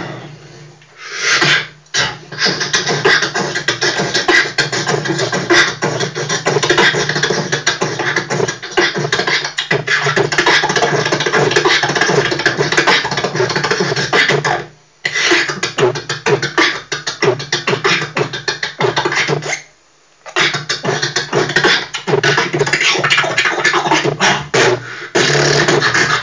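Beatboxing into a handheld microphone played back through loudspeakers: a dense, continuous run of vocal drum beats and clicks. It breaks off briefly three times, about a second in, around the middle, and a few seconds later.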